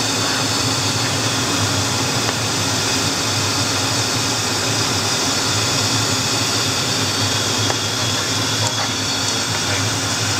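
Steady cockpit noise of an HU-25C Falcon twin-turbofan jet in cruise flight: an even rush with a low hum and a few faint high steady tones.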